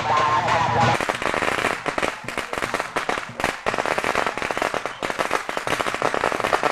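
A long string of firecrackers hung from a bamboo pole going off in a rapid, continuous crackle of pops, starting about a second in.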